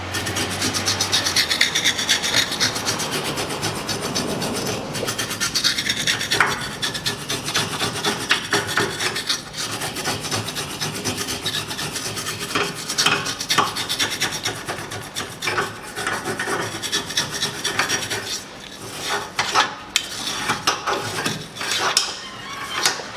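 A wire brush scrubbing rust off steel parts in quick, scratchy back-and-forth strokes, which come more separately near the end.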